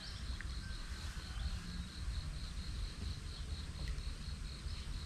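An insect chirping in a steady high-pitched pulsed trill, about five pulses a second, over a low background rumble.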